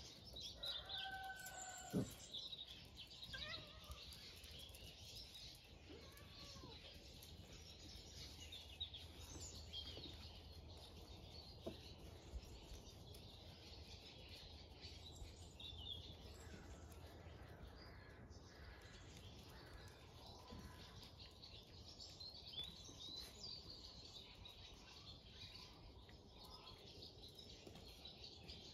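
Quiet outdoor ambience with small birds chirping faintly. A short pitched call comes about a second in, and a single sharp knock about two seconds in.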